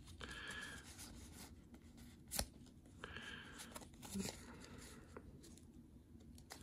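Pokémon trading cards sliding and rubbing against each other as a stack is handled and flipped through: faint scratchy swishes, with a light click about two and a half seconds in and a soft knock a couple of seconds later.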